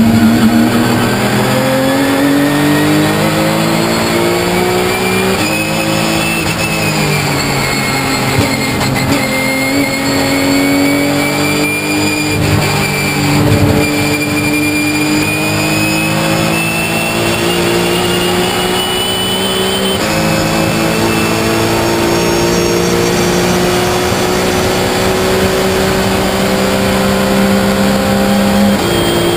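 Porsche 997 GT3 Cup's flat-six engine heard from inside the cockpit under power, revs climbing slowly in long pulls with a few gear changes, a clear one about twenty seconds in. A high whine rises and falls with the engine.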